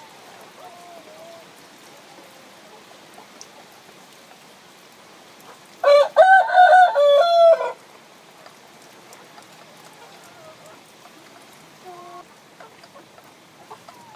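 A rooster crows once, loud, for about two seconds starting about six seconds in. Faint short chicken calls come before and after it over a steady faint hiss.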